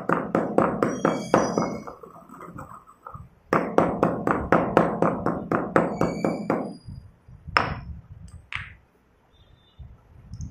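Stone pestle pounding crushed chalk in a stone mortar: quick, even strikes about five a second. They pause briefly about two seconds in and resume for about three seconds more. Two single knocks follow, then the pounding stops.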